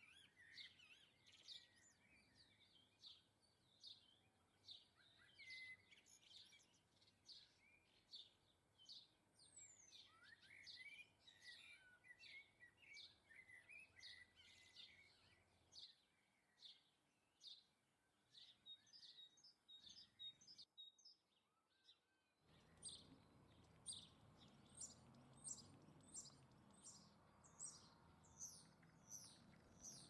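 Faint garden birdsong: small birds chirping and twittering. It breaks off briefly about two-thirds through, then comes back as short high notes repeated about twice a second.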